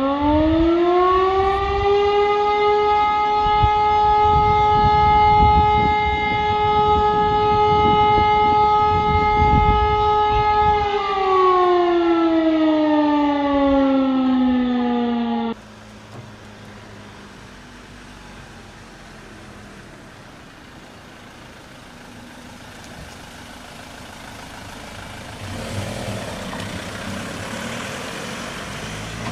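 A fire-brigade alarm siren winds up, holds one steady tone for about eight seconds, then winds down, sounding the call-out alarm for the volunteer fire brigade. A little past halfway the sound cuts off abruptly, leaving a quieter steady background noise.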